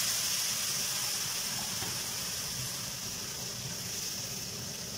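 Sugar syrup sizzling and hissing as it hits a hot pan of ghee-roasted vermicelli. The steady hiss slowly fades as the liquid settles.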